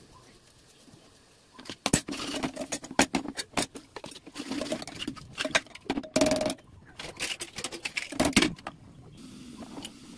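Metal ladle scraping and clanking against the inside of an aluminium pressure cooker while stirring, followed by metallic clinks as the cooker's lid is fitted on. The clatter starts about two seconds in and stops a little before the end.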